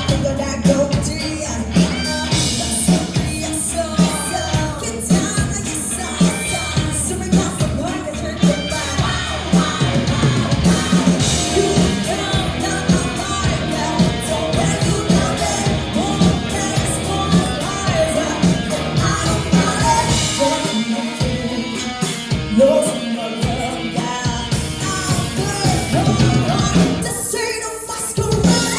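Rock band playing a song live with singing, a steady beat throughout, during a soundcheck. The music thins briefly just before the end.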